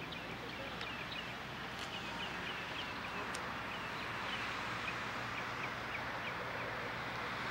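A small bird chirping over and over in short high notes, about two a second, over a steady background hiss.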